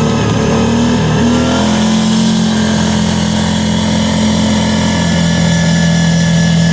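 Kawasaki Teryx side-by-side's engine running under way, its pitch stepping up about a second in and then holding steady.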